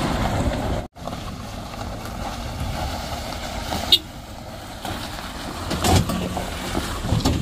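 Truck engine running on a freshly filled, soft road surface. The sound cuts out completely for a moment about a second in, and there is a sharp click near four seconds.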